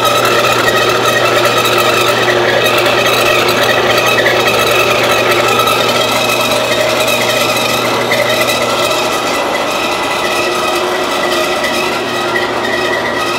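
A 4.5 × 6 inch metal-cutting band saw running, its blade cutting steadily through a metal bar held in the saw's vise. It makes a constant motor hum with several steady higher tones from the blade over it.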